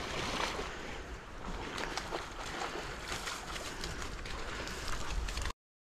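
Springer spaniel splashing through a fast-flowing stream and pushing out into the bankside weeds, over the steady rush of the water, with scattered splashes and rustles. The sound cuts off suddenly near the end.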